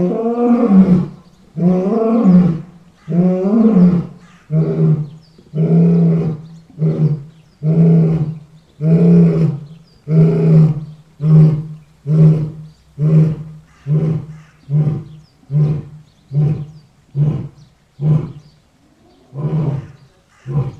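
Lion roaring bout: a few long, deep roars, followed by a run of shorter calls that come about once a second and grow briefer, with a short pause near the end.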